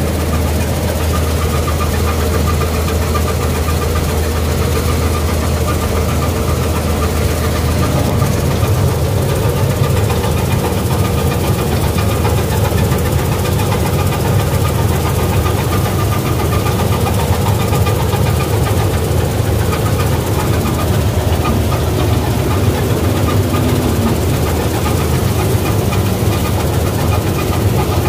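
Gill 961 combine harvester running steadily while it cuts and threshes wheat: a loud, even engine and machinery hum, whose low tone shifts about eight seconds in.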